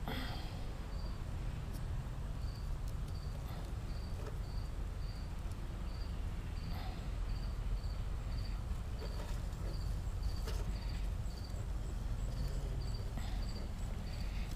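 An insect chirping steadily, about two high-pitched chirps a second, over a low background rumble, with a few faint clicks and scrapes from bonsai wire being handled.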